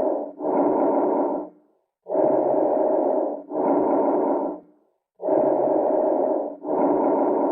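Recorded lung breath sounds, heard as through a stethoscope, in a steady breathing rhythm of about one breath every three seconds. Each breath is an in-breath and an out-breath of similar length and loudness, joined by a very short break, with a pause between breaths.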